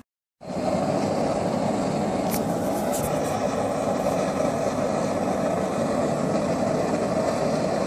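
Propane gas forge's T-Rex burner firing steadily, a constant even rush of flame and gas, running low at about half a bar for a small flame. It cuts in suddenly after a brief silence at the start.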